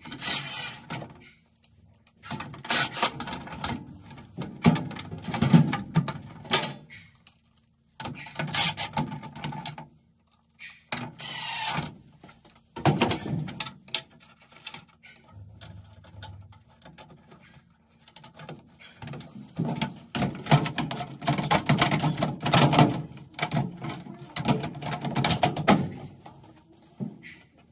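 Hands working on a top-load washing machine's control console: irregular clicks, knocks and rattles as wire connectors and the metal board cover and plastic console are handled during control-board installation.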